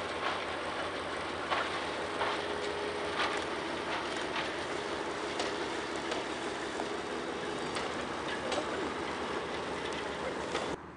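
Narrow-gauge diesel train rolling over a trestle bridge: a steady rushing rumble with wheel clicks over the rail joints about once a second. It breaks off abruptly just before the end.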